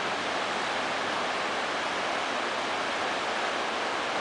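Steady rushing roar of the Río Salinas in flood, an even, unbroken wash of water noise.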